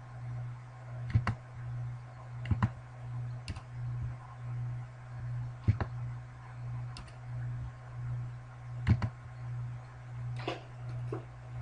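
Scattered single key presses on a computer keyboard, about eight in all and spaced a second or more apart, over a steady low hum that pulses evenly.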